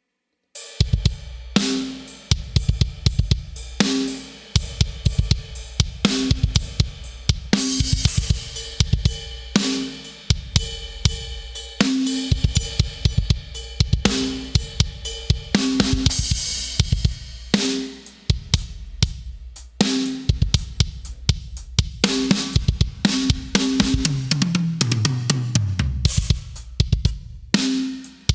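Sampled acoustic drum kit from BFD3 drum software playing a steady groove of kick, snare, hi-hat and cymbals, run through an API console emulation with a drums preset. Near the end a fill falls in pitch down the toms.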